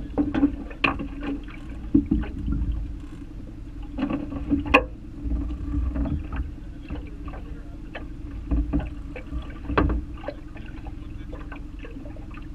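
Small waves slapping and knocking against a metal boat hull in irregular strokes, over a steady low hum.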